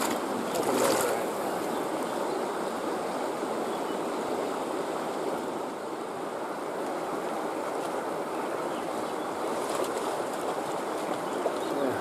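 Shallow mountain creek running steadily over rocks.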